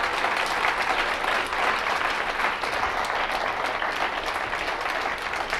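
Audience applauding, a steady wash of many hands clapping that eases off slightly near the end.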